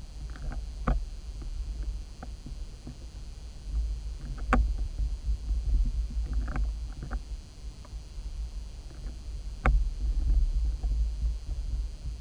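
Underwater sound picked up by a submerged camera: a steady low rumble that swells at times, with scattered faint clicks and three sharper ticks a few seconds apart.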